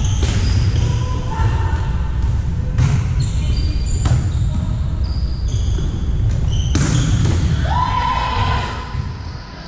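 Volleyballs being hit and bouncing on a hardwood gym floor, with several sharp smacks, short high sneaker squeaks and a constant low rumble, all echoing in a large hall.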